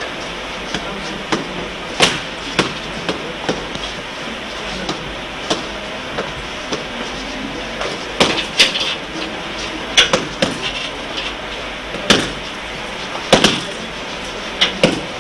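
Scattered sharp slaps and thuds of martial-arts sparring, from kicks and punches landing, feet slapping the floor and uniforms snapping, coming singly and in quick clusters over a steady hiss.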